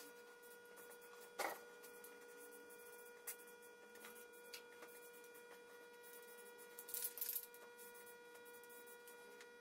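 Near silence with a faint, steady high-pitched electrical whine, broken by a few brief clicks and a short rustle about seven seconds in.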